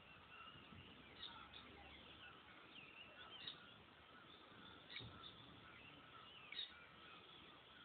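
Faint birds chirping over a low background hiss, with many short chirps and a few slightly louder ones scattered through.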